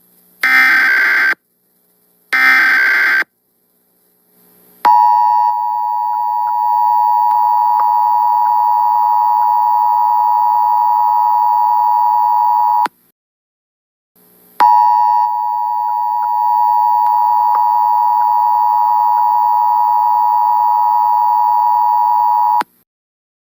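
Emergency Alert System tones: two short bursts of the digital SAME header data, each about a second long, then the two-tone EAS attention signal held steady for about eight seconds. It cuts off and, after a short pause, sounds again for another eight seconds. This is the alert opening a nationwide EAS test.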